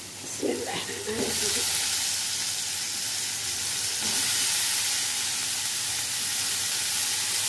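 Cut eggplant pieces dropped by hand into hot oil in a kadhai. About a second in, a sizzle starts and carries on steadily as the eggplant begins to fry.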